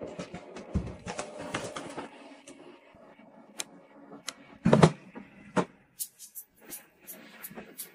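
Scattered light clicks and knocks, with one heavier thump just before five seconds in, the loudest sound, and a quick run of small high clicks near the end.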